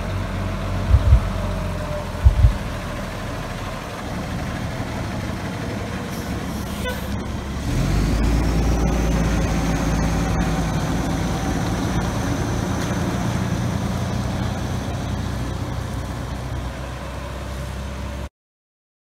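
Fire engine running as it drives up and passes close by, getting louder about eight seconds in, with a few short low thumps in the first few seconds.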